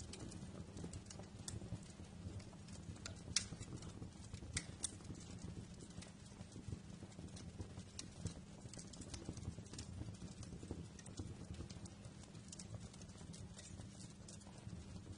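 Fireplace fire crackling: a steady low rumble of flames with scattered sharp pops and snaps, the loudest pop a little over three seconds in.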